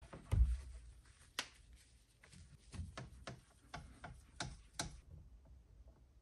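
A whiteboard on a wall being wiped with a tissue: a run of irregular taps and knocks from the hand and board, with a heavier thump near the start. The tapping stops about five seconds in.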